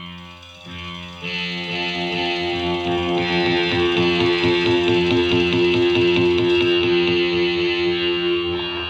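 Background music led by an electric guitar with effects, building up in loudness over the first second or so and then holding steady.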